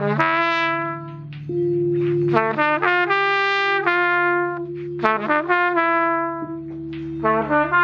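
Trumpet playing an improvised line: a few held notes, each lasting about a second, broken by short quicker notes. Under it runs a steady low drone.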